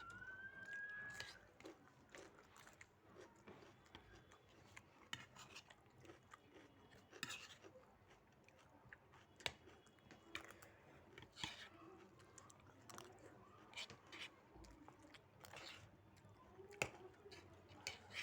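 Faint eating sounds from a veg fried rice and spicy chutney meal: chewing with scattered light clicks and taps throughout, and a brief rising squeak in the first second.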